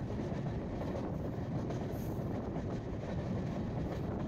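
Steady running noise of a moving express passenger train, the 16339 Mumbai–Nagercoil Express: an even rumble of wheels on rails and rolling coaches.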